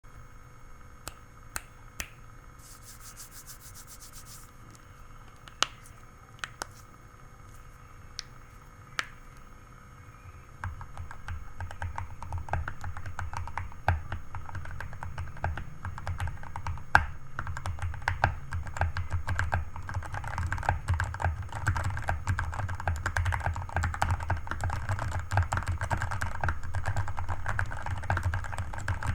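Redragon K617 mechanical keyboard with lubed Outemu Red linear switches, foam-modded case and XDA-profile keycaps, being typed on: a few single keystrokes at first, then from about ten seconds in fast continuous typing that grows denser and louder.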